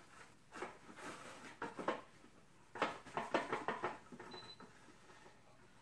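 Plastic cling wrap being pulled off its roll and out of the box, crinkling and crackling in a series of short bursts, the busiest stretch about three seconds in.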